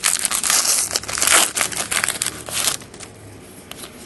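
Foil wrapper of a hockey card pack crinkling loudly as it is torn open and pulled off the cards. It stops about three seconds in, leaving a few faint clicks of cards being handled.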